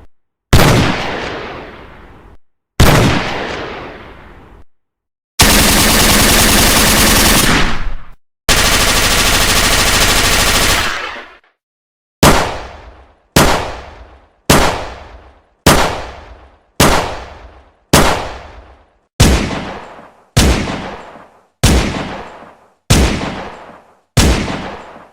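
Gunshot sound effects: two single shots with long echoing tails, then two sustained bursts of automatic fire, each about two and a half seconds long, then about a dozen single shots spaced roughly a second apart.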